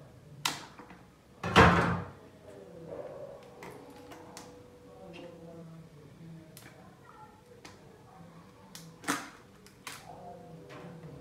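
A kitchen knife working at the plastic cap of a cooking oil bottle, then the bottle and cap being handled. It gives a series of sharp clicks and knocks. The loudest is a harsh half-second scrape about a second and a half in, with another sharp knock near nine seconds.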